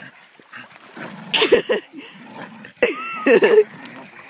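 Staffordshire bull terrier making two short bursts of excited vocal noise while tugging on a boat's rope in its jaws, about a second and a half in and again about three seconds in.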